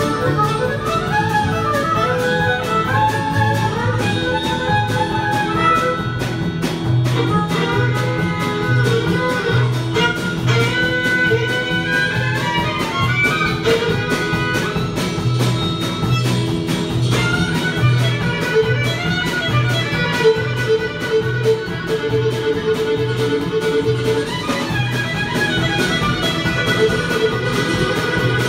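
Two fiddles playing a lively fiddle tune from a medley of train songs, over strummed acoustic guitar with a steady low bass beat.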